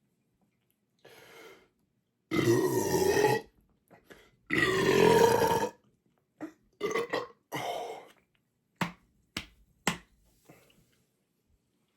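A man belching after chugging carbonated soda, the gas forced up by a full stomach. Two long, loud belches with a wavering, falling pitch come about two and four and a half seconds in. Three shorter belches follow, then three sharp short clicks.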